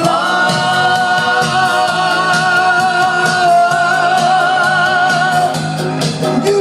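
Doo-wop vocal group singing a long held note with vibrato for about five and a half seconds over a steady beat, then moving to new notes near the end.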